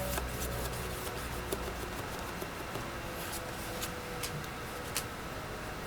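Paintbrush working acrylic paint over a cardboard box: soft rubbing with scattered faint ticks and clicks.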